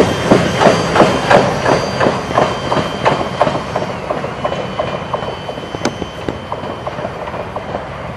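Freight train's loaded flatcar wheels clacking over the rail joints in a steady rhythm, several clacks a second, fading as the end of the train moves away.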